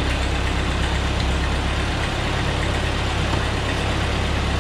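Ford 8N tractor's four-cylinder gasoline engine running steadily at idle just after a cold start, warming up.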